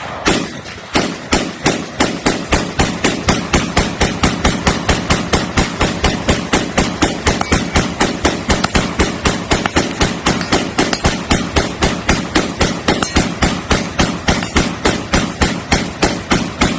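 A semi-automatic pistol fired as fast as the trigger allows, emptying a 60-round magazine: an unbroken, even string of loud shots at about four a second that stops abruptly at the end.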